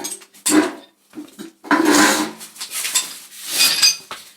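Metal hand tools clattering as wrenches are picked up and handled, in three separate bursts.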